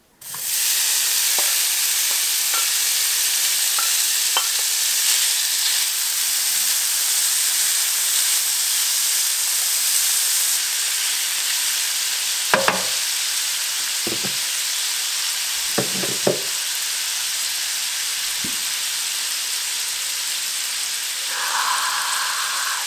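Bacon lardons sizzling as they start to fry in a hot pan, the sizzle starting suddenly as they hit the pan and then holding steady. A few short knocks from a wooden spatula stirring them come in the second half.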